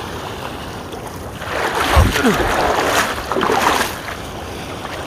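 Sea water and surf washing around a person wading in the sea. It swells louder for about two seconds in the middle, with a low thump as the swell begins.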